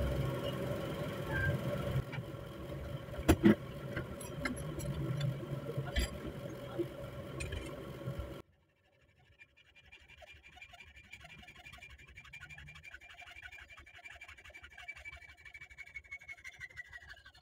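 Hacksaw cutting through a steel rod held in a bench vise, heard as faint, even rasping strokes. It is preceded by a steady hum with a couple of sharp clicks that cuts off abruptly about eight seconds in.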